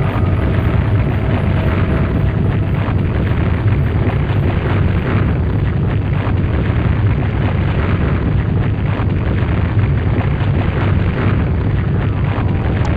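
Loud, continuous deep rumbling noise, steady throughout with no clear beat or tune.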